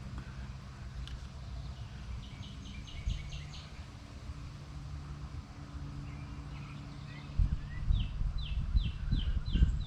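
A songbird singing two short runs of quick, repeated downslurred notes, about six notes each, the second run near the end. Under it runs a steady low hum, and low rumbling thumps join in over the last couple of seconds.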